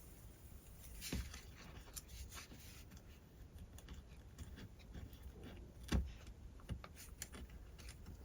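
Faint scattered clicks and taps from small pieces being handled and fitted into a stripped screw hole, with a louder knock about six seconds in.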